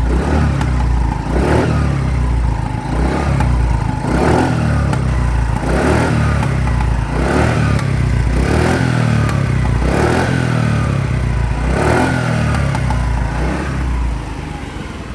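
TVS Jupiter scooter's single-cylinder engine revved and let back again and again, with sharp pops from the silencer each time the throttle closes, about every second and a half. The mechanic puts the backfiring down to a failed secondary air control valve.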